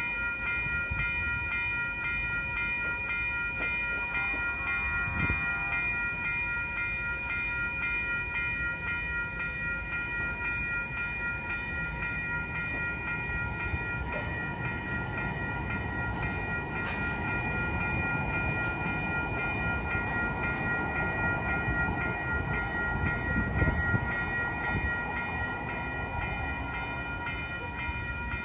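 Electronic railroad crossing bell ringing steadily while the crossing is active. A train's rumble builds through the middle and is loudest about two-thirds of the way in.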